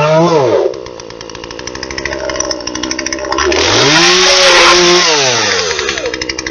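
Two-stroke chainsaw revved high, then dropping to a rapid puttering idle. It is revved up again for about a second and a half before falling back to idle.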